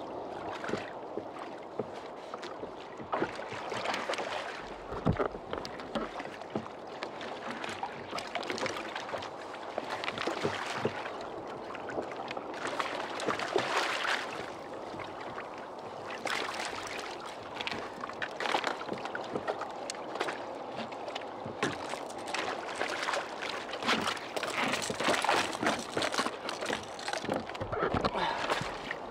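Sea water sloshing and lapping against a kayak hull, with irregular splashes as a hooked fish thrashes at the surface beside the boat while it is landed.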